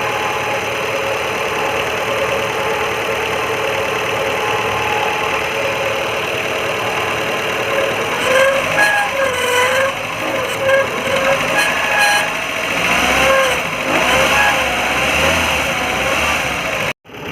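Maruti Gypsy engine running with a loud grinding whine from a worn alternator bearing. About eight seconds in, a wavering pitched sound joins it and the level swings up and down.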